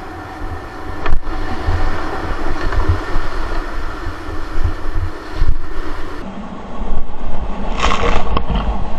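Whitewater rapid rushing and splashing around a kayak, heard from a camera on the boat, with a low rumble of water buffeting the microphone that surges up and down. A heavier splash washes over the camera about eight seconds in.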